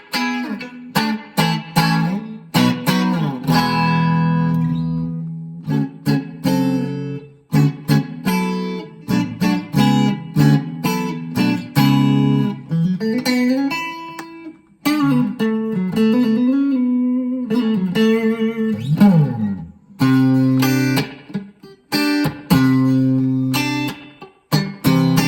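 Schecter OL-PT-TH thinline electric guitar played through a VOX MINI5 practice amp: picked and strummed chords, some let ring and some cut short. Around the middle there is a passage of bent notes that slide up and down in pitch.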